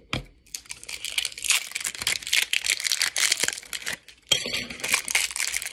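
Stiff plastic packaging of shower curtain rings crinkling and crackling as it is handled and pulled open, with a brief pause about four seconds in.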